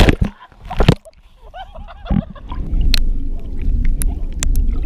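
Water splashing hard around a camera at the surface of a truck-bed pool, two loud splashes within the first second. Then the sound goes muffled and underwater: a steady low rumble with a few sharp clicks.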